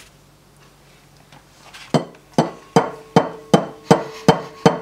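An egg tapped over and over against the rim of a glass mixing bowl to crack it, starting about two seconds in at about two and a half taps a second; each tap makes the glass bowl ring briefly.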